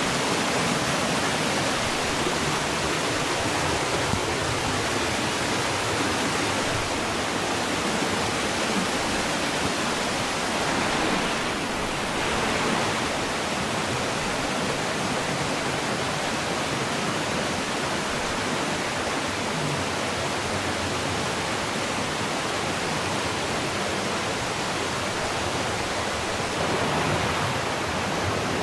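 Rushing water in a mountain gorge stream, a steady even rush spread from low to high pitches.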